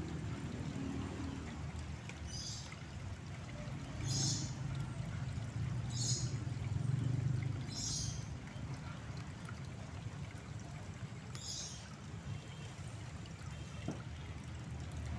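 Water trickling in a small drain, over a steady low rumble that swells for a few seconds in the middle. Short high chirps come about every two seconds.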